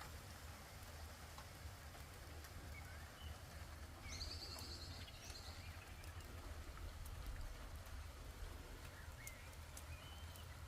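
Steady rain with scattered drop ticks, and small birds twittering over it: a few short chirps about three seconds in, a brighter burst of twittering about four to five seconds in, and two short calls near the end.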